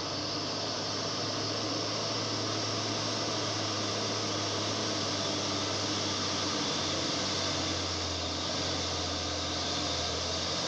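Hino 500 truck's diesel engine pulling steadily under load as the laden truck climbs a steep gravel grade, a constant low drone under a broad hiss.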